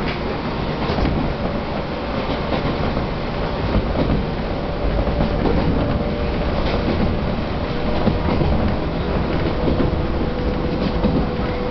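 Chichibu Railway 1000 series electric train (a former JNR 101 series) running at speed, heard from inside the car: a steady rumble of wheels on rail with occasional clacks and a faint steady whine from the running gear.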